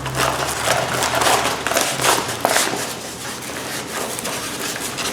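Rustling and crinkling of packaging and a rolled diamond-painting canvas being handled, in several irregular strokes.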